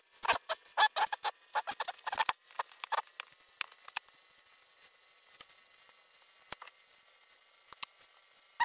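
Small metal parts of a euro lock cylinder and tools being worked by hand: quick metallic clicks and scrapes, busy for the first few seconds, then only a few scattered ticks.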